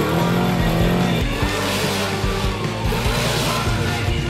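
Moto Guzzi 500 cc V8 racing engine revving, its pitch rising and falling several times, over background music.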